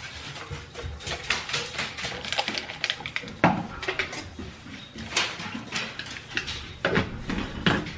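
Plastic protein shaker cup being handled: irregular clicks, taps and knocks as matcha powder goes in and the lid is fitted, with sharper knocks about three and a half seconds in, about five seconds in and twice near the end.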